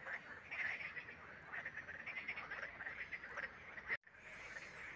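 A chorus of frogs calling, a dense run of fast pulsing croaks, cutting off suddenly about four seconds in.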